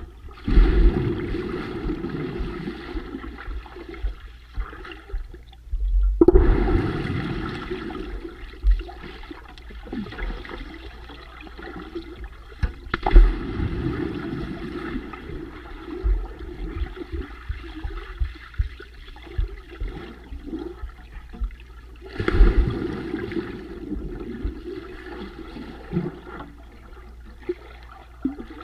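Splashing, rushing and bubbling heard from underwater as people plunge into the water, with three big entries: near the start, about six seconds in and about twenty-two seconds in, and lighter knocks and bubbling between them.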